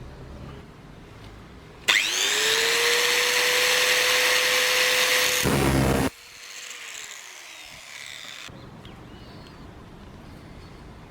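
A small power tool's electric motor spins up quickly to a steady high-pitched whine and runs for about four seconds. It is then switched off and winds down, its pitch falling as it slows.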